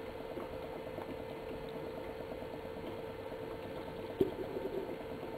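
HHO gas from an electrolysis generator bubbling steadily and rapidly through water, over a constant hum. One sharp tick about four seconds in.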